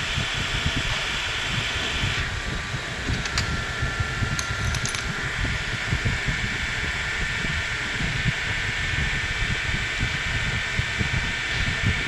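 Steady fan-like background hum with a low rumble, broken by a few light metallic clicks about three to five seconds in.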